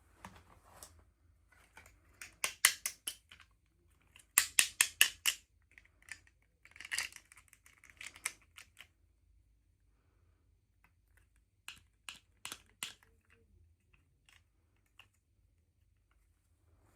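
Hands handling small plastic toy packaging: several quick runs of sharp clicks and crackles, with a short rustle about seven seconds in.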